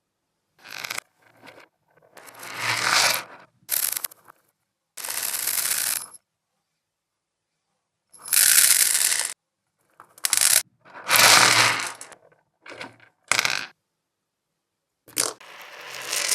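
Plastic beads rattling and chewing sound effects played in reverse: about a dozen short rattling, crunching bursts with dead silence between them. Several swell up and then cut off suddenly.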